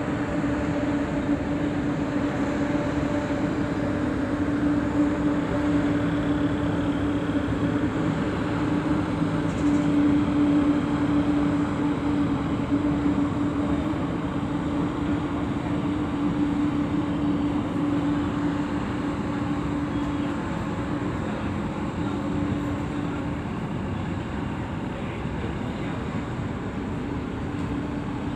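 Steady drone of a passenger ferry's diesel engines: a constant low hum over an even rushing noise. The hum weakens for a few seconds after about twenty seconds, then returns.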